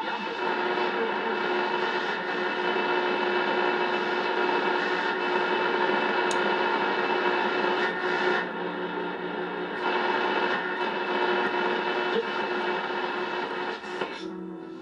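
Audio from a restored Patterson Model 16C communications receiver, played through an external permanent-magnet speaker: a steady, sustained sound made of many held tones, with no speech, dipping briefly about eight and ten seconds in.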